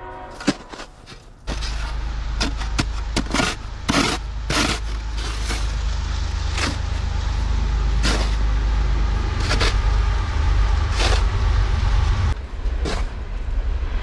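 Snow shovel scraping and chopping at packed snow and ice around the foot of a metal gate: short scrapes about every half second to a second and a half, the later ones further apart. Under them a loud low rumble starts suddenly about a second and a half in.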